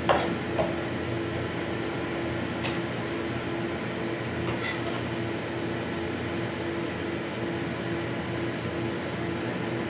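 Dishes and utensils clinking: a sharp clink right at the start, another just after, then two lighter ones near 3 and 5 seconds, over a steady mechanical hum with a low held tone.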